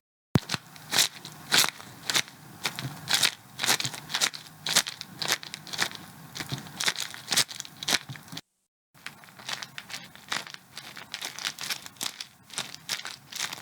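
Home-made foley effects made with household objects: a run of crunching, crackling strokes, two or three a second, broken by two short dead-silent gaps, one just after the start and one about two-thirds of the way through.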